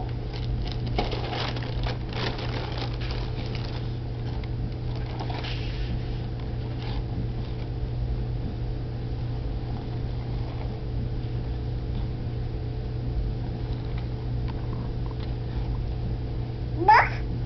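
Cardboard cereal box and its inner plastic bag rustling and crinkling in small hands, in scattered bursts mostly in the first few seconds, over a steady low hum. Near the end, one short rising squeal-like call, the loudest sound.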